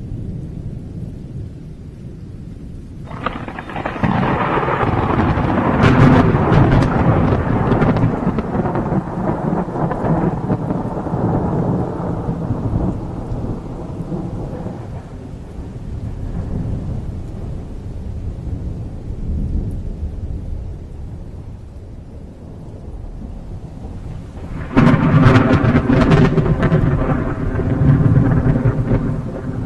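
Thunderstorm with rain. A low rumble gives way to a clap of thunder about three seconds in that rolls on for about ten seconds and dies away, then a second sudden, loud crack of thunder comes near the end.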